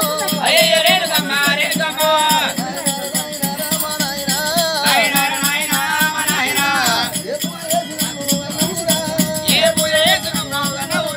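Devotional folk song: a voice singing three phrases over a steady shaken-rattle beat.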